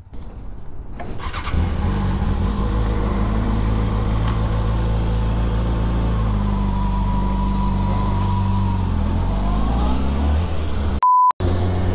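Kawasaki Ninja ZX-6R inline-four engine starting about a second in and idling steadily, then revving up as the bike pulls away near the end. A short steady beep cuts in just before the end.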